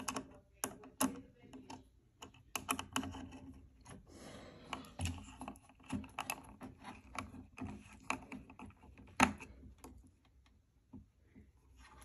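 Irregular small clicks, taps and rustles of hands and a screwdriver working wires into the screw terminals and plastic housing of a fire alarm speaker strobe, with one sharper click about nine seconds in.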